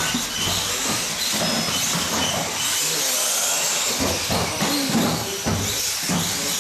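Electric 1/18-scale off-road RC cars racing on an indoor carpet track: a steady hiss with short, high-pitched whines of the motors that come and go as the cars pass.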